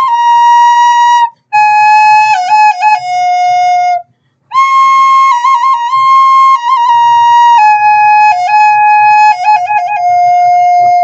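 Solo flute melody of slow held notes decorated with quick ornamental turns, played in phrases broken by two short breaths about a second and about four seconds in.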